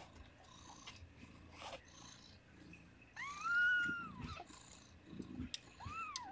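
Newborn kitten crying: two high, thin cries that rise and then fall, a long loud one about three seconds in and a shorter one near the end, over a faint cat purr.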